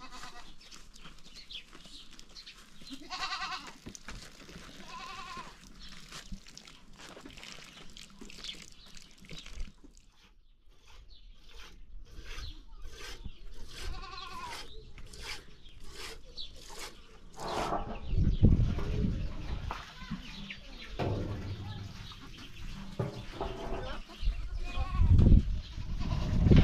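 Sheep of the flock bleating: a few separate quavering calls. Between them comes a run of short taps, about two a second. From about two-thirds of the way through, a loud low rumbling noise takes over and is louder than the calls.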